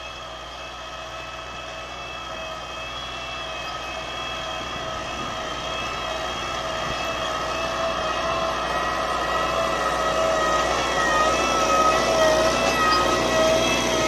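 Valmet 985 tractor engine running steadily under load as it pulls an offset disc harrow through the soil, a pitched drone that grows steadily louder as the tractor comes up close.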